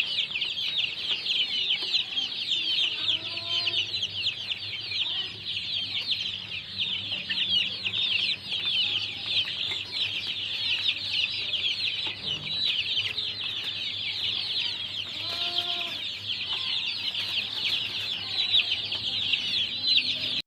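A flock of young chicks peeping nonstop, a dense chorus of short, high cheeps. A few lower, deeper calls stand out, around three to four seconds in and again about fifteen seconds in.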